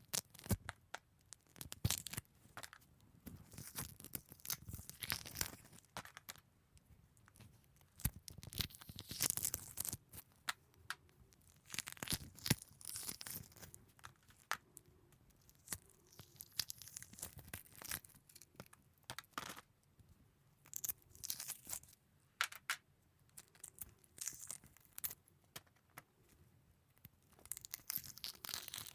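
Eggshell being peeled off a boiled egg: irregular bursts of small cracks, crackles and tearing of the shell membrane, with short pauses between.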